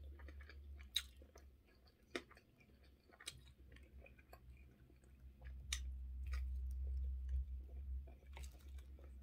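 A person biting and chewing a slice of sausage, with scattered sharp mouth clicks, a few louder ones about one, two and five and a half seconds in.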